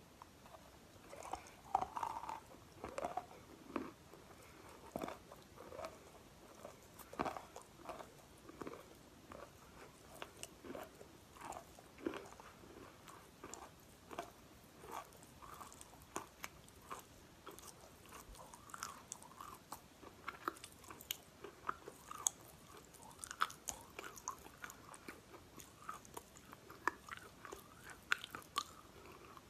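A person biting and chewing chunks of chalk, with many irregular crisp crunches.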